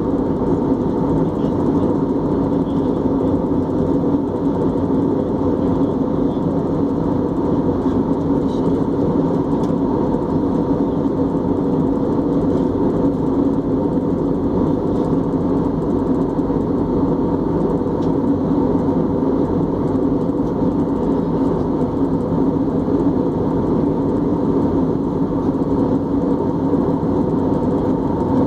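Airbus A320 cabin noise in flight: a steady drone of jet engines and rushing air, with a constant hum of a few held tones.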